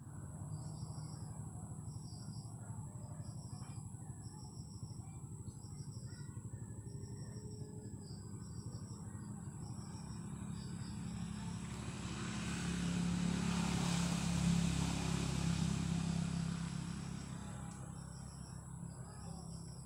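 A small bird repeats a short high chirp about every half second over a steady low hum. Midway a motor vehicle passes, its engine noise swelling up and then fading away.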